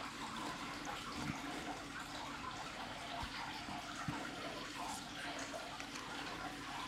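Faint steady hiss with a few soft ticks and rustles, typical of trading cards being handled and flipped through.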